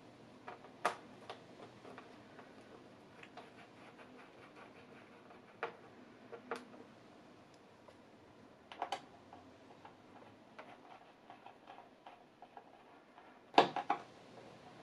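Scattered light clicks and taps of a small screwdriver working the screws on the back of a tablet computer, with a sharper click about a second in, a few more around the middle, and the loudest pair near the end.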